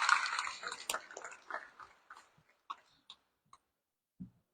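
Audience applause fading out over the first second or two, leaving a few scattered single claps and a low thump near the end.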